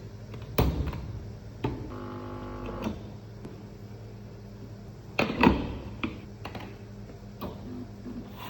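Espresso machine being handled: a series of clicks and knocks over a steady low hum, with a short buzz of about a second near two seconds in.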